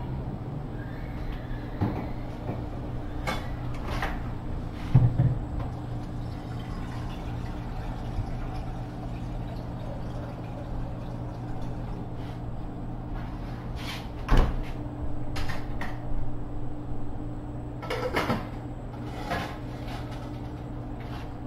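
Kitchen handling noises: scattered knocks and clunks of cookware and cupboard doors as a pot is set onto the electric stove, the loudest about five seconds in and again past the middle, over a steady low hum.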